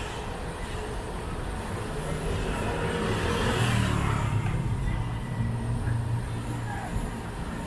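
Street traffic: a motor vehicle passes, swelling about three to four seconds in, and an engine's low hum grows stronger after it. Under it, a large wok of oil deep-frying banana fritters bubbles and sizzles.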